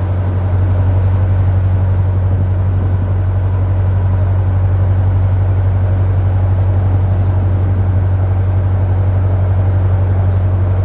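Narrowboat diesel engine running steadily, a loud low drone with an even, slightly pulsing beat.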